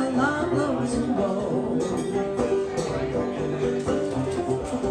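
A banjo and a cello banjo played together live, a steady run of plucked notes over the lower voice of the cello banjo.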